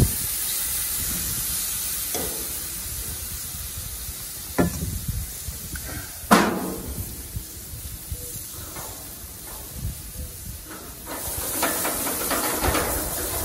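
Oiled, chopped squash, zucchini and tomatoes sizzling steadily after being tipped into a preheated steel grill pan over high gas heat. Two sharp knocks come about four and a half and six seconds in, and the sizzling swells again near the end.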